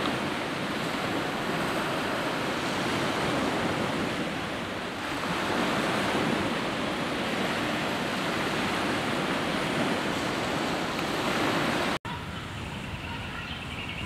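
Steady rush of small waves washing onto a pebbly shore, swelling a little midway. About twelve seconds in it cuts off abruptly to a quieter outdoor background.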